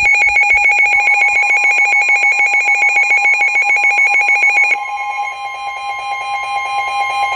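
Emergency Alert System alert tone: a loud electronic alarm of steady pitched tones pulsing rapidly, dropping somewhat in level about five seconds in and carrying on. It announces a National Weather Service special marine warning.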